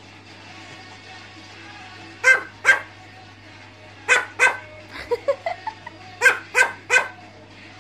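Small fluffy black dog barking in short groups, two sharp barks, then two more, then three, with quieter rising whiny yips in between: a talkative dog 'chatting' for attention.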